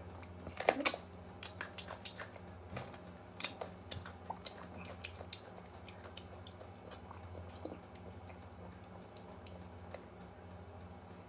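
A crunchy bite into a slice of raw green mango, the loudest sound, about a second in, followed by crisp, wet chewing clicks that thin out after about five seconds. A steady low hum runs underneath.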